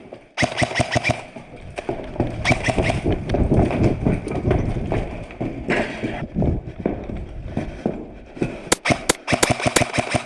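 Airsoft electric rifles firing several short full-auto bursts, a rapid clatter of about ten shots a second, near the start, a few seconds in, and again near the end, with rustling movement in between.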